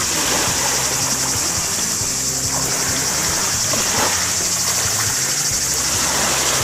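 Small waves lapping and washing over a pebble shore, with light splashing from a swimmer in shallow water, over a steady high-pitched hiss.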